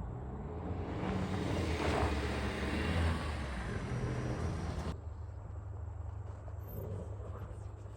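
A vehicle going by: a rushing noise over a steady low rumble swells and then cuts off abruptly about five seconds in, leaving the low rumble.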